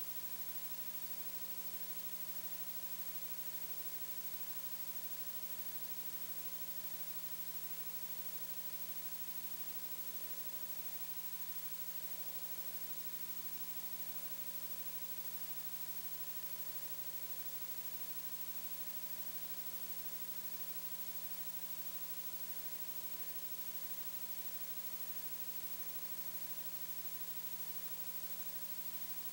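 Steady electrical hum with a constant hiss over it, unchanging throughout: line noise on the audio feed with no programme sound.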